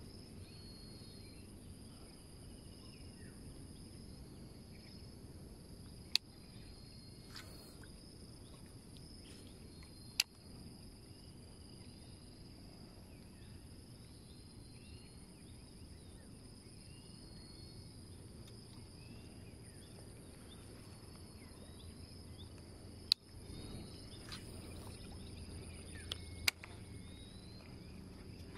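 Insects droning steadily at a high, even pitch, with faint short chirps scattered through and a low rumble underneath. Four sharp clicks stand out briefly.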